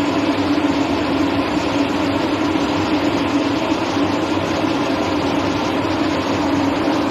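KLTM60 fog cannon running steadily on a trial run: its fan blowing water mist makes a continuous loud airy noise with a steady hum underneath.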